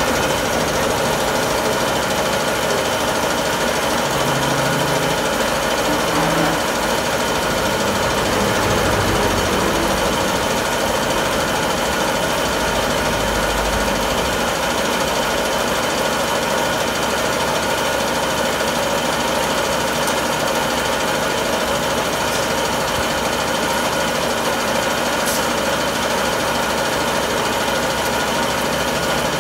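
A machine running steadily: an even motor drone with several held tones.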